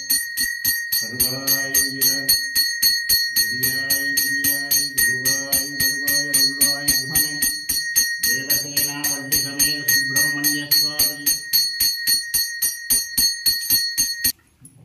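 Puja hand bell rung fast and evenly, about four strokes a second, during the arati, with a man's voice chanting in long held notes over it. The voice stops about 11 seconds in and the bell cuts off abruptly near the end.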